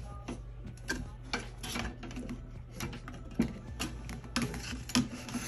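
Handling noise of a BETTERSUB tumbler heat press's curved metal heating clamp being slid off the press: irregular light clicks, knocks and rubbing of metal parts.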